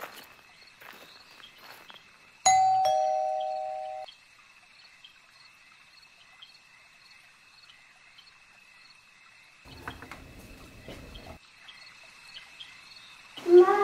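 Electronic doorbell ringing once about two and a half seconds in: a two-note ding-dong, a higher tone followed by a lower one, both dying away over about a second and a half. Crickets chirr steadily behind it.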